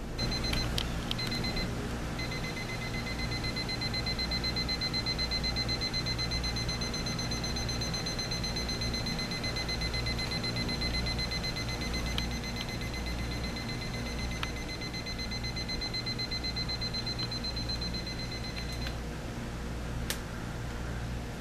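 Elgin 3675E battery alarm clock sounding its ascending electronic alarm: a high-pitched, rapid beeping that starts, breaks off briefly about a second in, then runs steadily until it stops a couple of seconds before the end. A single click follows near the end.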